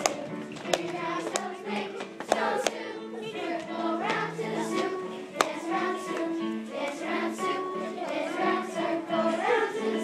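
A group of children singing a song together over music, with a few sharp knocks or claps in the first half.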